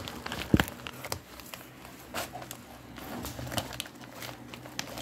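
Scissors cutting open a plastic mailer bag: crinkling and rustling of the plastic with a run of small snips and clicks, the sharpest about half a second in.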